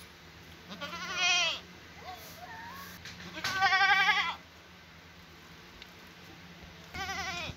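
Male goat bleating three times, each bleat quavering: one about a second in, a longer and louder one in the middle, and a third near the end.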